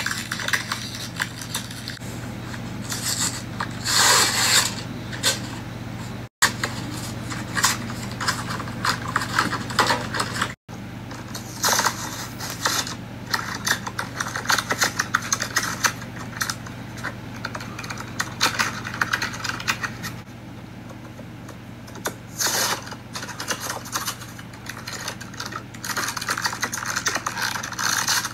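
Clear plastic bags crinkling and tearing in irregular bursts as toy cars are unwrapped by hand, over a steady low hum.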